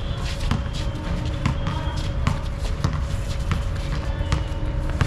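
Basketball bouncing on a hard court with players' footsteps: a run of short, irregular thuds and slaps, several to the second.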